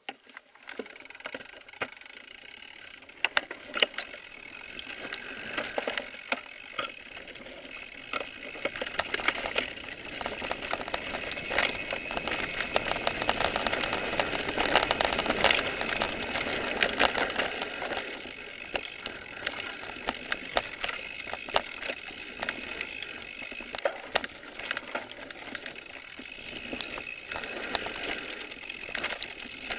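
Mountain bike riding down a dirt forest trail: a steady rush of tyre and riding noise, with the bike rattling and many sharp clicks and knocks over bumps. The noise swells for several seconds through the middle.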